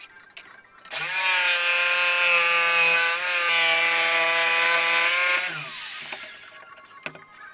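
Electric jigsaw switched on about a second in, cutting through a board with a steady motor whine and rasping blade noise. It is switched off after about five seconds and winds down with a falling whine.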